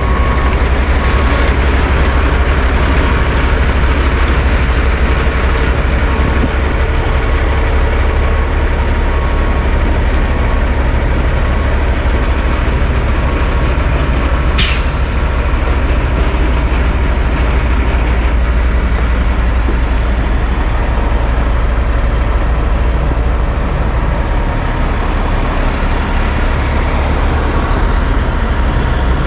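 Kenworth dump truck's heavy diesel engine running with a steady deep rumble, with a brief sharp air-brake hiss about halfway through.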